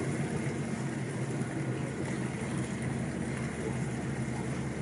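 Passenger ferry's engine running with a steady low drone, mixed with water rushing along the hull.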